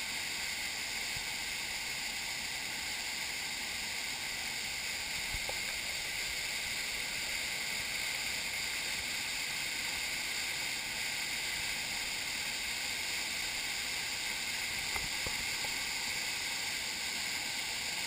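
A small waterfall pouring into a rock pool: a steady, even rush of falling water.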